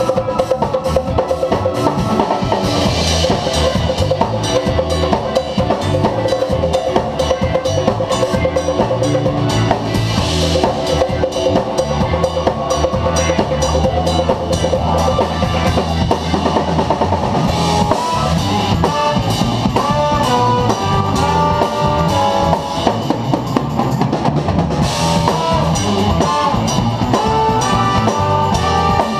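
Live funk-jazz band playing a steady groove on drum kit, electric bass and electric guitar, with keyboards. Over the second half, melodic lines from the horn section (trumpet and trombone) come in over the rhythm.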